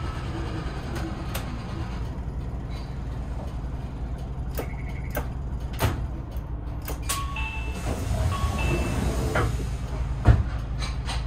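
Inside a moving bus: a steady low drone from the engine and road, with rattles and clicks from the cabin fittings. A few short beeping tones sound in the second half, and there is a sharp knock near the end.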